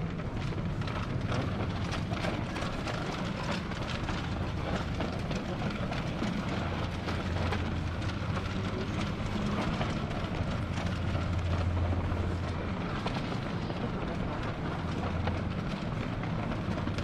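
Shopping cart rolling over a tiled supermarket floor: a steady low rumble with a continual light rattle of clicks, the rumble heavier for a few seconds in the middle.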